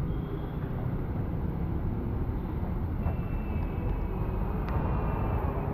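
Heavy rain pouring down, with motor traffic passing on the wet road: a steady rush of noise. A faint, thin high tone comes in about three seconds in and lasts a couple of seconds.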